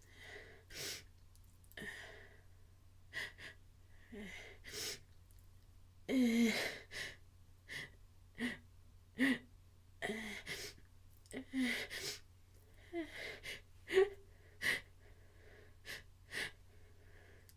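A person's sneeze buildup: a run of short sniffs and hitching, gasping breaths, some of them voiced, building toward a sneeze that does not yet come. The loudest gasps fall about six and fourteen seconds in.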